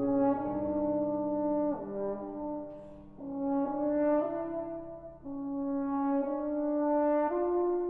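French horn playing a slow melody of long, sustained notes over soft piano accompaniment. The phrases swell and fade, with short breaks about three and five seconds in.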